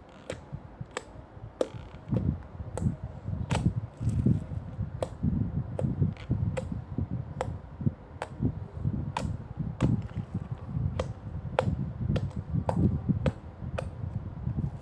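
Slime being squeezed and worked by hand: sharp popping clicks of trapped air, about two or three a second, over soft low squelching.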